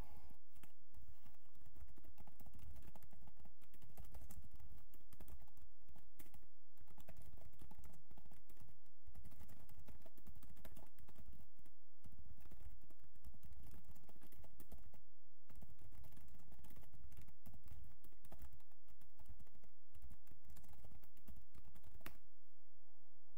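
Typing on a computer keyboard: irregular runs of key clicks broken by short pauses.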